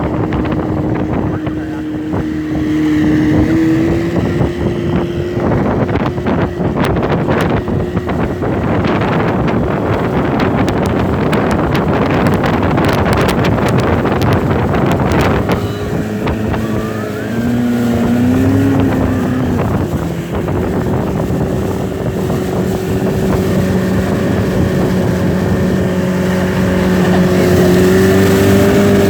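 Motorboat engine running at speed while towing a tube, with a heavy rush of wind and water and the hull slapping on the waves. The engine pitch steps up a few seconds in, the rush and slapping ease about halfway through as the boat slows, and the engine pitch rises again near the end.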